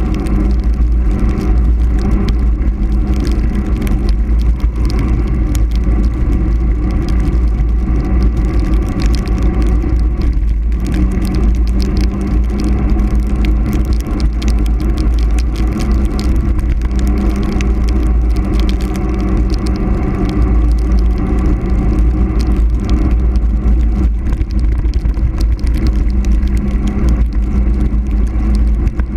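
Wind buffeting the microphone and tyre roar from a mountain bike running fast down a paved road, with a steady low hum and many small rattles and ticks throughout.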